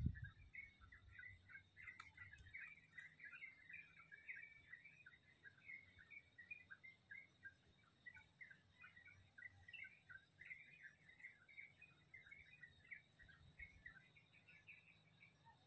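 Many small birds chirping and twittering together in a steady, faint chorus of short, quick notes, with a low thump right at the start.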